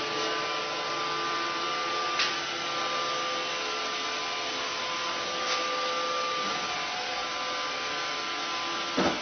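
Roomba robot vacuum running with a steady whir and hum. Sharp knocks come about two seconds in and again near the middle, and a louder one just before the end.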